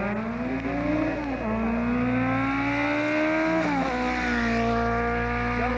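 Rally car engine pulling hard through the gears. The pitch climbs, then drops back sharply at a gear change twice, about a second and a half in and again near four seconds.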